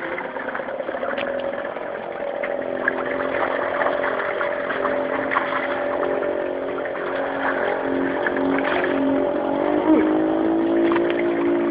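An engine running steadily, its pitch shifting about ten seconds in, with scattered short clicks over it.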